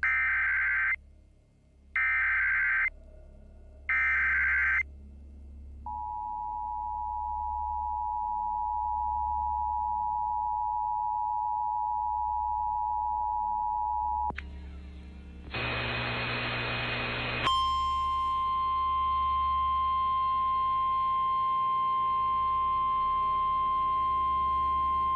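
Emergency Alert System activation: three short bursts of the SAME data header, then the two-tone EAS attention signal held for about eight seconds. After a couple of seconds of hiss, a single steady alert tone sounds, the NOAA Weather Radio warning alarm, and it cuts off just before a tornado warning is read.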